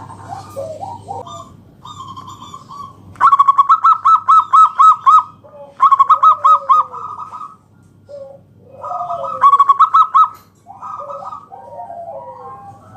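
Zebra dove (perkutut) cooing song: three loud runs of quick, repeated trilling coos, about four notes a second, with softer gliding coos between them.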